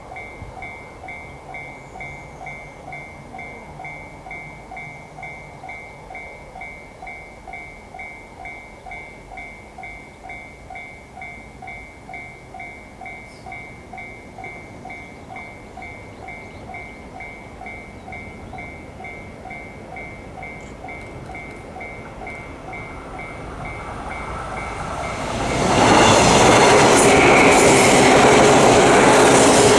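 Japanese level-crossing warning bell ringing in steady, evenly spaced electronic dings. Near the end a 189-series electric train approaches and passes close by loudly, drowning out the bell.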